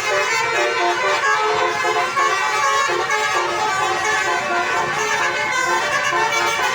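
Bus musical horn playing a tune, note after note, high-pitched with hardly any bass.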